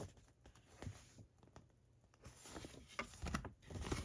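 Faint handling noise of glossy collector's cards and packaging: scattered light taps and soft rustles, with a short lull in the middle.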